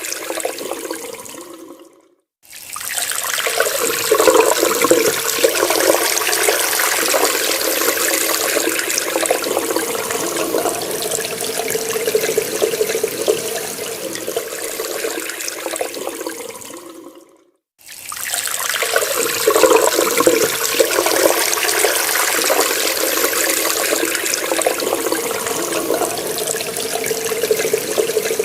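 Water running from a tap into a sink with a steady splashing hiss. It fades out to a brief silence about two seconds in and again about seventeen seconds in, each time starting again at once.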